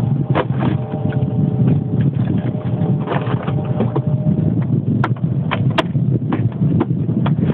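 Wind rumbling on the microphone, with scattered knocks and a faint held tone in the first half.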